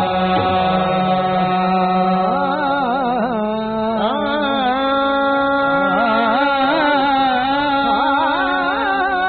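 Qawwali performance: harmonium holding sustained notes, joined about two and a half seconds in by a male singer's wordless, wavering vocal line.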